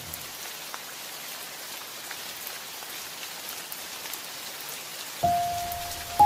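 Steady hissing with faint crackles: the sizzle of hot stir-fried water spinach and quail eggs in sauce as they are tipped from the wok into a bowl. Near the end two held music notes come in about a second apart, the second louder.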